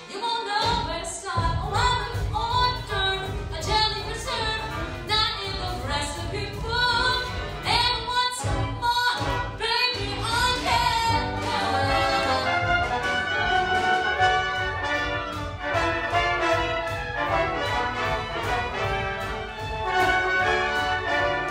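Brassy musical-theatre pit orchestra playing an upbeat show number, with a voice singing over it in the first half and a steady beat under held brass chords in the second half.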